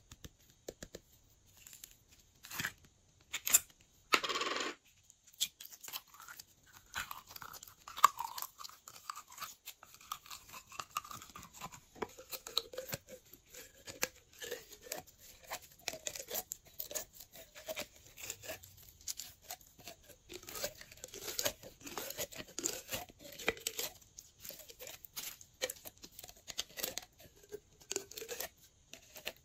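Glossy slime being mixed and kneaded by hand: a dense run of sticky clicks, pops and crackles, with one louder short burst about four seconds in.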